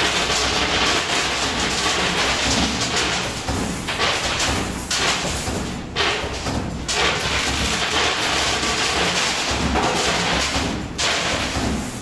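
Coin pusher machine running: a dense clatter of metal coins with thuds, in long stretches broken by short lulls.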